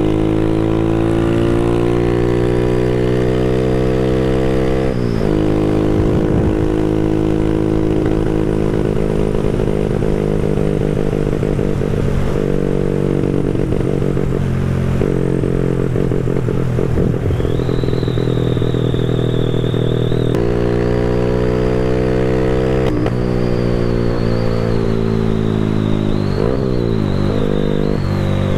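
Small motorcycle engine under way at speed, with the pitch dropping sharply at gear changes about five seconds in, twice around the twenty-second mark and again near the end, and holding steady in a long cruise between. Wind rumble on the microphone runs underneath.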